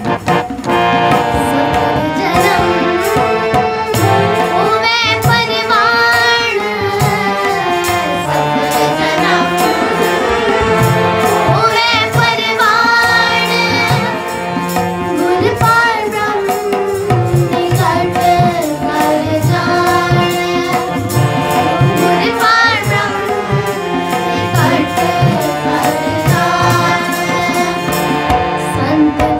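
Sikh kirtan: girls singing a shabad in unison to a harmonium's held chords and a tabla's steady rhythm.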